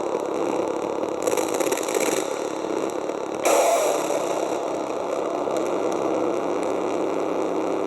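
A homemade piezo noise box, played through distortion, gives a steady gritty drone. A brighter, hissing swell comes about a second in, and a sudden louder crash at about three and a half seconds fades back into the drone.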